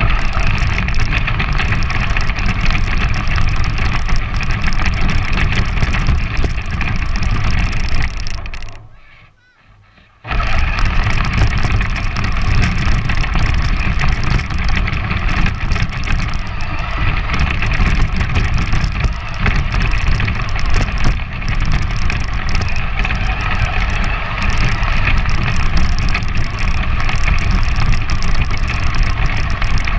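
Battery-powered RC 4x4 truck driving, its electric motor and gears whining steadily with rumbling tyre noise, heard from on board the truck. The sound dies away about eight seconds in, and after a short pause it starts up again abruptly as the truck drives on.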